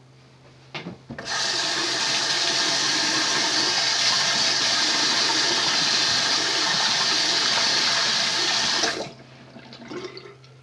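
A short knock, then a bathroom sink tap running hard for about eight seconds while whipped cream is rinsed off a face, stopping abruptly near the end.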